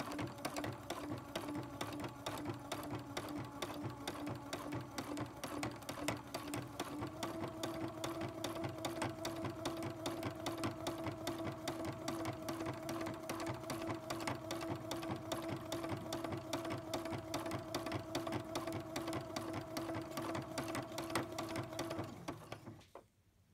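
Domestic sewing machine free-motion embroidering, the needle stitching at a fast, even rate over a steady motor hum. The hum steps up a little in pitch about seven seconds in, and the machine stops about a second before the end.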